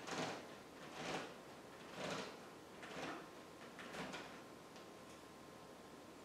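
The cable of a home exercise tower running over its pulley with each pull: a short sliding rasp about once a second, five times, stopping about four seconds in.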